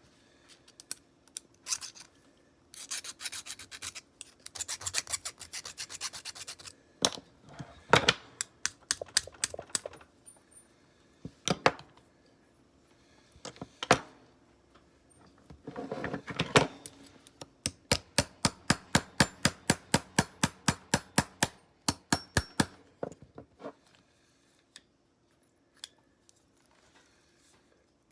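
Bursts of quick hand-rubbing strokes on an old Soviet folding knife's parts, as in filing or abrading. Near the end comes a steady run of short, regular strokes, about five or six a second.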